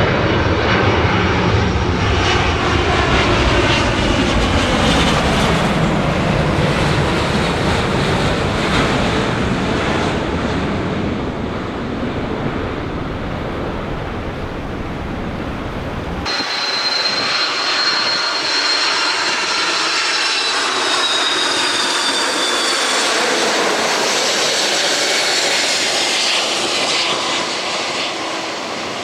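Jet airliner's engines running loud as it passes, with tones gliding down in pitch. About halfway through, the sound cuts abruptly to a thinner, high engine whine that slowly falls.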